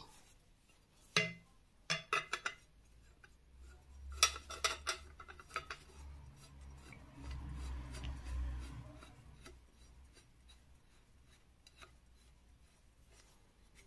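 Brass threaded pipe fittings clinking and scraping as a copper pipe's brass adapter is screwed into a brass elbow by hand: a few sharp metal clicks in the first five seconds, then a low rubbing grind of threads from about six to nine and a half seconds in.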